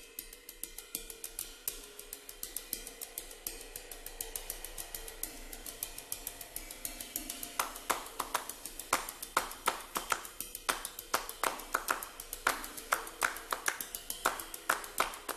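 Promo music built on a quick, even run of sharp clicks and hand claps over a faint held tone; the claps grow louder about halfway through.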